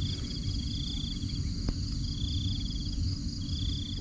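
Insects trilling in the field in repeated pulsing stretches of about a second each, over a steady higher insect hum. A low rumble runs underneath, and there is a single sharp click near the middle.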